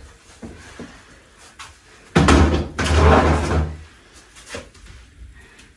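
Kitchen cupboard door being opened with a loud clattering bump about two seconds in, lasting over a second, amid faint handling noise.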